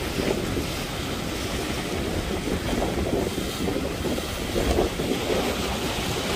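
Choppy sea waves breaking and splashing, with strong wind buffeting the microphone as a low, uneven rumble.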